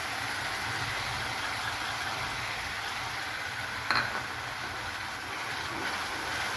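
Coarsely ground tomato sizzling steadily in hot oil in a kadhai as it is fried and stirred, over a low steady hum, with one sharp knock about four seconds in.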